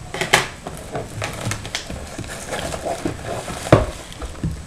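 A cardboard trading-card box being opened and handled by hand: rustling and scraping with scattered clicks. A sharp knock comes about three-quarters of the way through, and a smaller one near the end.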